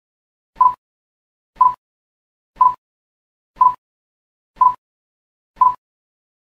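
Quiz countdown-timer sound effect: a short, identical pip once a second, six in all, each marking one second of the on-screen countdown.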